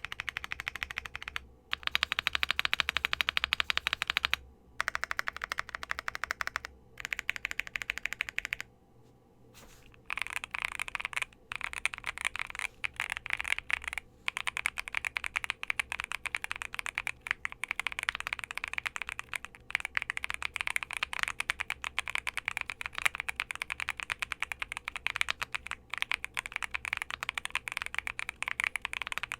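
Typing on a Monsgeek M1 V3, a gasket-mounted aluminium 75% mechanical keyboard fitted with Akko Creamy Purple Pro switches: rapid key clacks. The first part comes in several short bursts with brief pauses, and from about ten seconds in the typing runs steadily.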